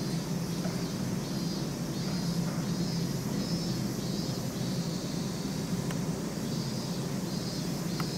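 Steady low background hum with a faint high hiss that comes and goes, and a couple of sharp clicks, the clearer one near the end.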